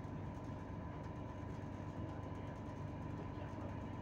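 Passenger train running, heard from inside the carriage: a steady rumble with a faint steady whine over it.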